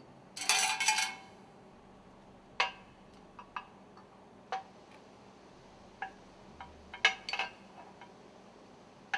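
Metal stuffing-box ring segments clinking and clattering as they are handled and set down on a work table: a short clatter about half a second in, then single clinks spread through the rest.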